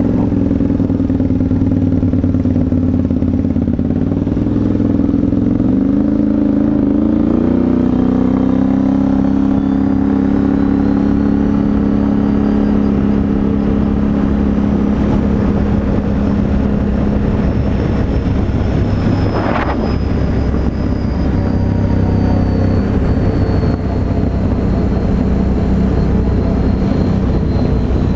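Can-Am Renegade 850 XXC ATV's V-twin engine, with a Yoshimura aftermarket exhaust, running under way as the quad is ridden. The revs shift and climb in the first several seconds and then hold fairly steady. There is one short knock about two-thirds of the way through.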